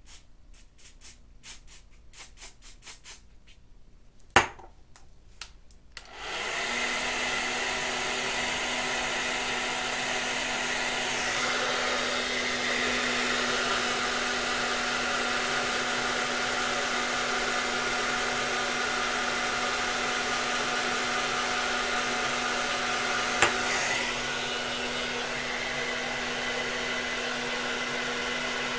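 Handheld hair dryer switching on about six seconds in and then running steadily, a rushing blow with a steady hum, used to dry the lace-wig adhesive. Before it starts there are a few light clicks and one sharp click, and near the end its level drops slightly after a click.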